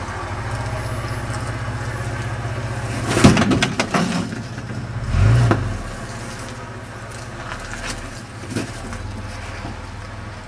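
Toyota Landcruiser's engine running with a steady low rumble as the truck crawls down stepped rock ledges. About three seconds in comes a sharp crack and a quick cluster of knocks, and about two seconds later a heavy thud, as the tyres and underside strike the rock.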